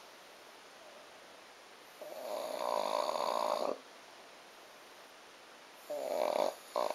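Snoring: one long snore lasting nearly two seconds, about two seconds in, then a shorter, broken snore near the end, with quiet gaps between them.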